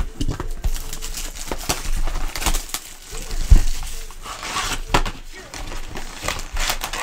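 A cardboard trading-card box being handled and torn open by hand: crinkling and crackling of the wrap and the cardboard, then foil card packs rustling inside, with a single sharp knock about halfway through.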